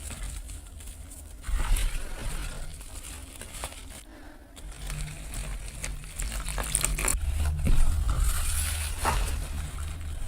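Close-up crushing of brittle dry material, ASMR-style: scattered small crackles and clicks, busier in the second half, over low thuds.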